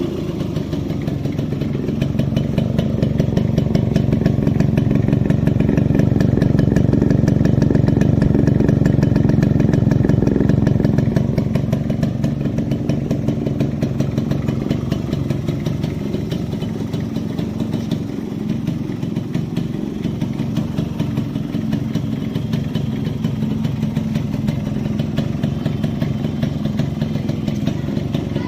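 Yamaha RX-135's single-cylinder two-stroke engine idling through its stock exhaust, with a fast, even pulsing beat. It runs a little faster and louder for the first ten seconds or so, then settles back to a steady idle.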